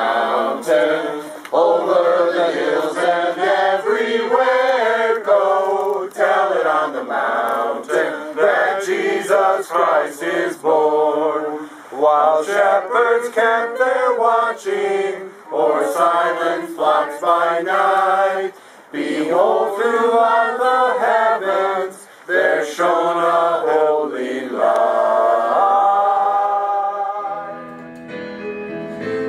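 A choir singing, with short phrases that change pitch rapidly; near the end the voices settle into long held notes.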